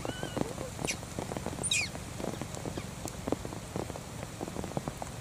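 Rain pattering on the ground, with a baby macaque giving a short arched coo at the start, then two shrill squeals that fall quickly in pitch, about one and about two seconds in.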